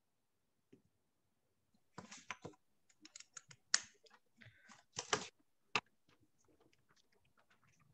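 Computer keyboard typing: a run of irregular keystroke clicks starting about two seconds in, loudest in the middle, then trailing off into fainter taps.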